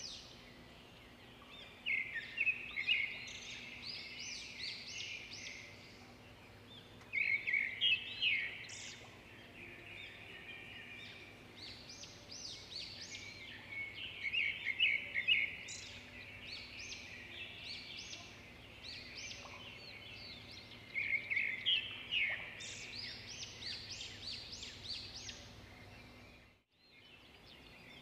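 Songbirds chirping and chattering in the trees, in several dense bursts of quick high chirps over a faint steady background hum; the sound drops out briefly near the end.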